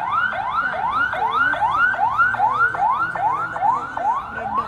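Convoy escort vehicle's electronic siren sounding in fast repeated rising sweeps, about three a second.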